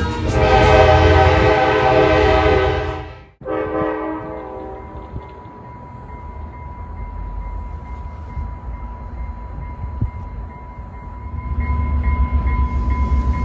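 Multi-tone train horn sounding for about three seconds, then cut off abruptly. After a quieter stretch, a diesel commuter locomotive approaching on the station track brings in a low engine rumble that builds over the last couple of seconds.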